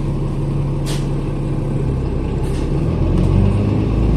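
Bus engine and road noise heard from inside the cabin: a steady drone whose engine note drops about halfway through, with a couple of brief hisses.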